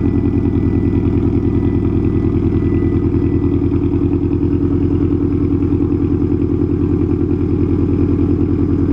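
A car's engine and exhaust running at a steady speed, a loud, even low drone with a fast pulse.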